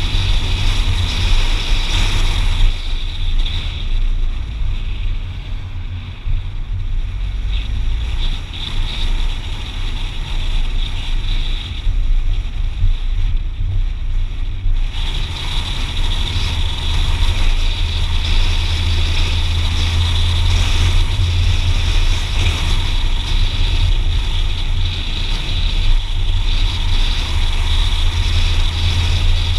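A car driving along a road, heard from inside the cabin: a steady low engine hum with tyre and wind noise over it. The higher hiss drops away for a stretch from about three to fifteen seconds in, and the low hum grows stronger in the second half.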